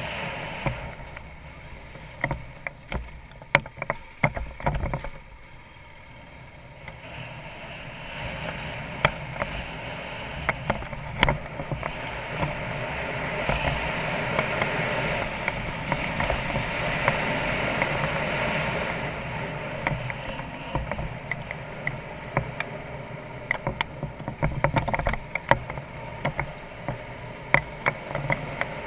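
BMW F650GS Dakar's single-cylinder engine running as the motorcycle rides a rough dirt track, with wind rush over the microphone and frequent sharp knocks and rattles from bumps. It dips quieter for a couple of seconds about five seconds in, then grows louder again.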